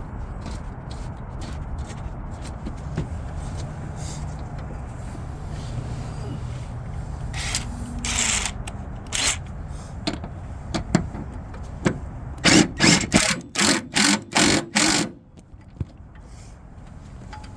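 A power tool, such as a drill or driver, run in about six short, loud bursts near the end, over a steady low hum.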